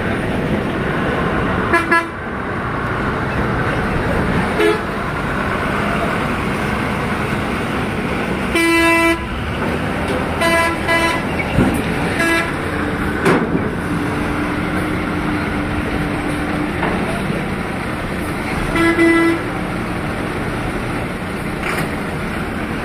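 Vehicle horns honking in short blasts about six times, the longest and loudest a half-second blast about nine seconds in, over the steady noise of running engines.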